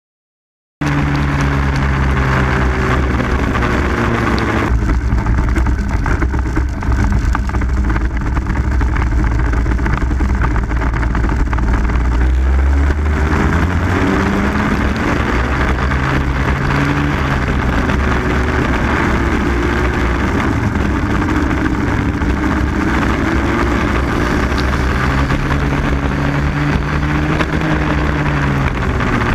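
Racing kart's two-stroke engine heard onboard, cutting in about a second in and running hard, its pitch rising and falling again and again as it revs up on the straights and drops off into corners.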